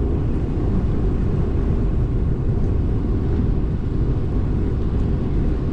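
Steady low rumble of wind buffeting the microphone while riding an e-bike along a trail.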